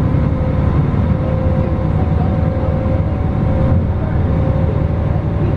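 Bus engine and road noise heard from inside the passenger cabin while driving: a steady low rumble with a faint, even whine over it.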